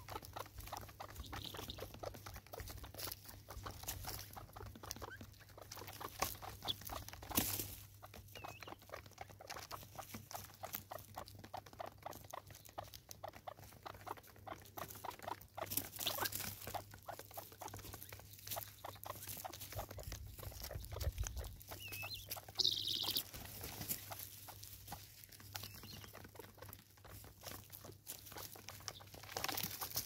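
Helmeted guineafowl pecking birdseed off the tops of wooden stumps: a dense, continuous run of small, quick beak taps on wood. A few short, high calls come now and then.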